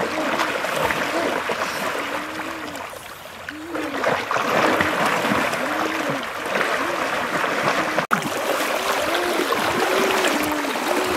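River water splashing and churning around wading legs and a big fish dragged through it on a rope, with a short rising-and-falling gurgle about twice a second. It gets louder about four seconds in.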